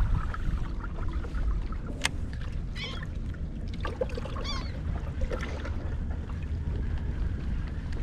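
Steady low wind and water rumble around a kayak, with a few short calls from seabirds circling overhead and a single sharp click about two seconds in.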